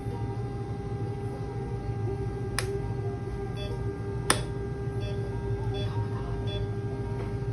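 Steady electrical hum of veterinary dental equipment, with two sharp clicks a little under two seconds apart, the second louder, and faint short beeps.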